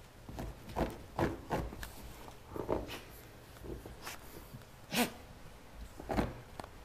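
A puppy making short sounds right at the microphone: a string of brief separate bursts, the loudest about five seconds in.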